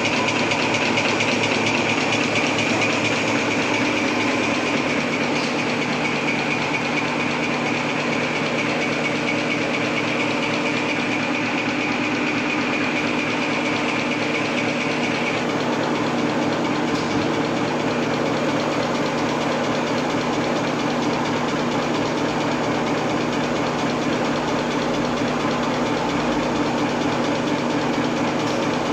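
Napkin paper folding machine running steadily: a dense, even mechanical noise with a low hum. A high-pitched whine in the first half stops about halfway through.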